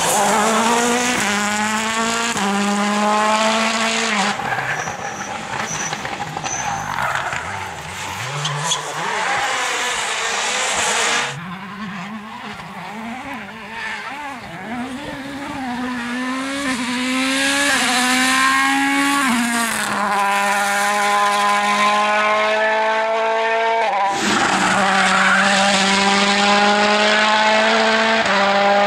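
World Rally Car turbocharged 1.6-litre four-cylinder engines at full throttle, the pitch climbing and dropping sharply with each gear change, in several separate passes. Tyres are scrabbling as a car slides on the loose verge.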